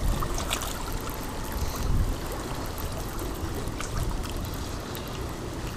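Shallow seawater trickling and lapping at the muddy shoreline, over a low rumble, with a few faint ticks.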